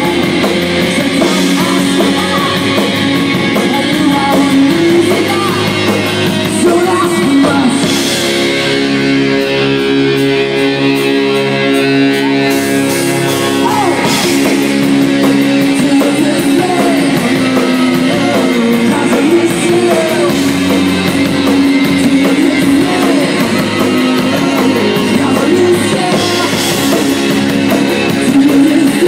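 Live rock band with electric guitar, drums and lead vocals, heard from close to the stage. About a third of the way in the band drops back to held chords for a few seconds, then the full band comes back in.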